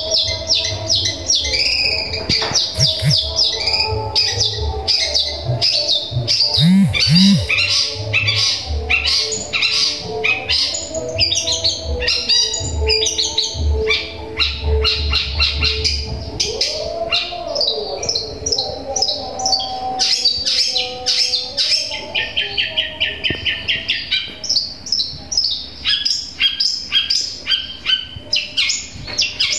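Long-tailed shrike (cendet) singing a continuous run of rapid, repeated chirps, mimicking the chirping of a tree sparrow (burung gereja).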